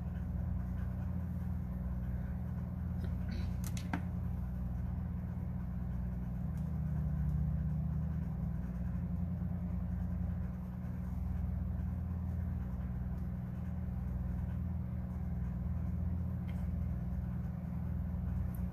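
A steady low hum runs throughout, with a few faint clicks about four seconds in and again near the end.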